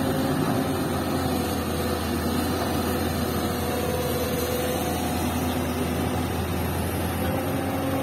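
Diesel engines of a Hyundai hydraulic excavator and a dump truck running steadily while soil is loaded into the truck. The drone is a low hum, with engine tones that swell and fade as the excavator works.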